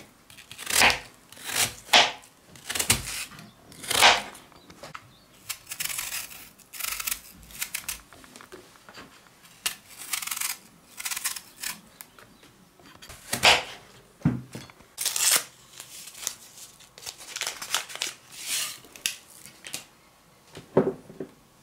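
Kitchen knife cutting through raw apple, a series of crisp cutting strokes about one a second, with a light knock near the end.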